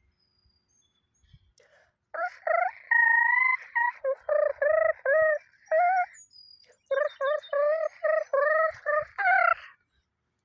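A bird calling in two quick runs of repeated, pitched notes, a few notes a second, starting about two seconds in and ending shortly before the close.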